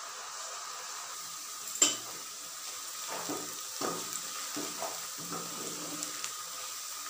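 Sliced onions sizzling in hot oil in a pot, being fried until lightly browned. A single sharp knock comes about two seconds in, and from about three seconds a wooden spatula stirs them in repeated scraping strokes against the pot.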